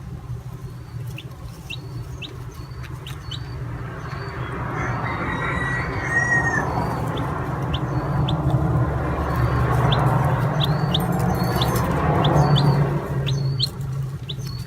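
Baby chicks peeping: short, high cheeps repeating every second or so, over a rushing noise that swells through the middle and fades near the end.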